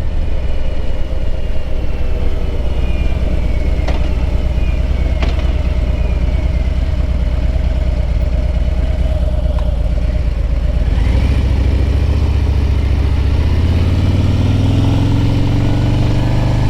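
Harley-Davidson V-twin touring motorcycle engine running at low revs, then accelerating from about two-thirds of the way through, its note rising steadily.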